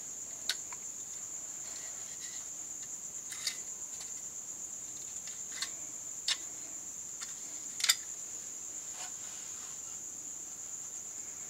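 Hands turning the opened fluorescent lamp's plastic base and tube assembly, giving a handful of light plastic clicks and taps, the loudest about eight seconds in. A steady high-pitched whine runs underneath throughout.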